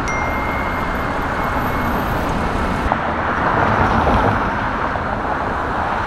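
Steady road traffic noise, with a faint high steady tone during the first two seconds.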